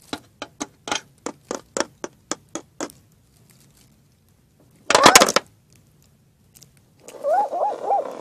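A run of sharp taps, plastic toy figures tapped across a hard surface as they are walked along. Then a loud short burst about five seconds in, and three quick rising-and-falling animal-like calls near the end.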